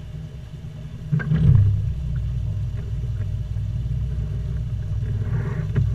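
Bass boat outboard motor idling with a low rumble. About a second in it revs briefly, then settles into a steady, louder run.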